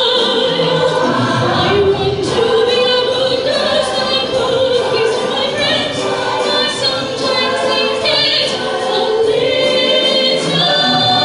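A show choir singing together over music, many voices at once, loud and continuous.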